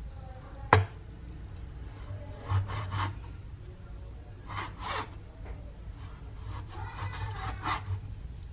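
Large knife slicing raw buffalo meat on a cutting board. One sharp tap of the blade on the board comes just under a second in, followed by several drawn slicing strokes a few at a time.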